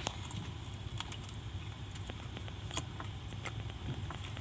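Low steady hum of a car idling, heard from inside the cabin, with scattered faint clicks and taps.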